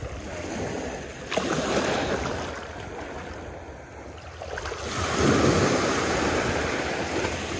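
Ocean waves breaking and washing up the beach, two swells of surf, the second one louder and longer, starting about five seconds in.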